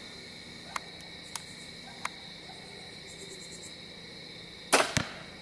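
Crickets chirping steadily, with a few faint ticks early on and, near the end, two short loud rustling bursts in quick succession.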